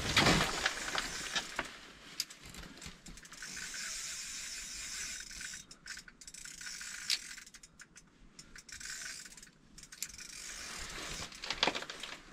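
Fishing reel being cranked in several spells with short pauses, a fast mechanical ratcheting whir, as a hooked fish is reeled in through the ice. A loud knock sounds right at the start.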